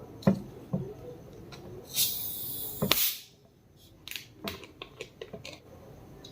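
Close-miked eating-show handling sounds: a few small clicks and taps, a hissing burst of about a second near the middle that ends in a sharp click, then a quick run of small clicks and taps.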